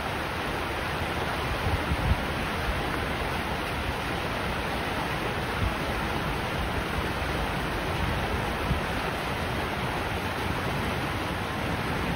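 Shallow river riffle rushing over rocks: a steady, even rush of water, with a few brief low thumps, loudest about two seconds in.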